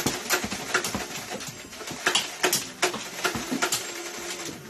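Toy foam blasters firing over and over, with foam rounds clacking against the plastic LEGO dueling-tree targets: a quick, irregular string of sharp clicks and knocks.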